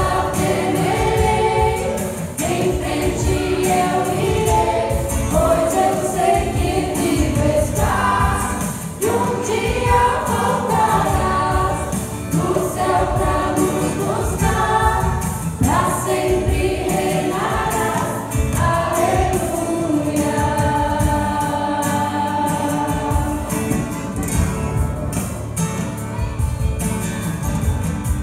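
Mixed church choir of men and women singing a Christmas cantata number.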